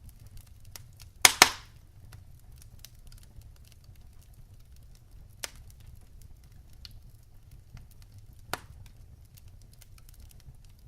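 Wood fire crackling in a fireplace: scattered small crackles over a low steady rumble, two loud pops close together about a second in, and single sharper pops around the middle and near the end.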